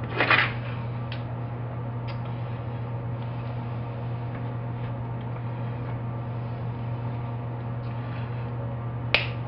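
Hand tools clicking and clinking against a metal parts tray, the loudest clatter about half a second in and a sharp click near the end, with a few faint ticks between, over a steady low hum.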